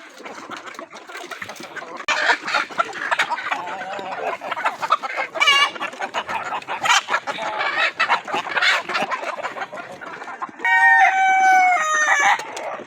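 A flock of desi chickens clucking and calling busily, then a rooster crows once near the end, a long crow of about two seconds.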